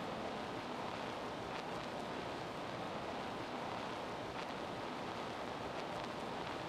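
Steady, even background noise of a gym during a basketball game, with a few faint, brief sounds from the play on the court.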